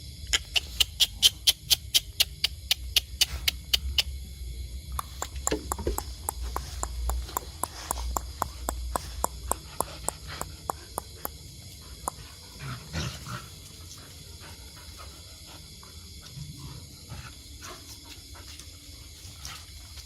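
Dogs at play: a fast, even run of sharp clicks, about five a second, for the first few seconds, then looser clicks and short noises that die away about two-thirds of the way through.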